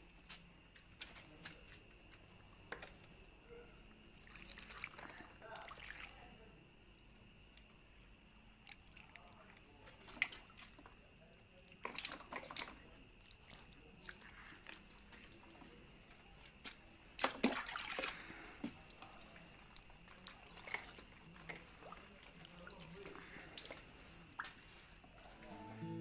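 Water splashing and dripping from wet potted and hanging plants in scattered, irregular bursts.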